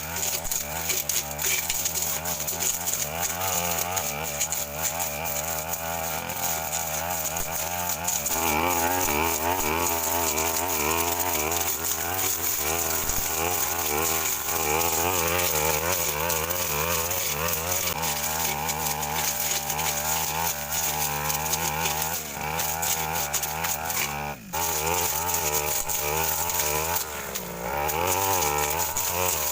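Stihl FR 3001 two-stroke backpack brush cutter running at high revs, its engine pitch wavering up and down as the blade cuts through scrub. There is a short drop in level about three-quarters of the way through.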